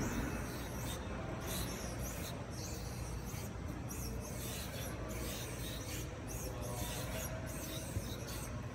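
Resistance units of a SURGE 360 training platform rasping and swishing as its two poles are pushed and pulled back and forth, repeating about twice a second over a steady low hum, with one sharp knock near the end.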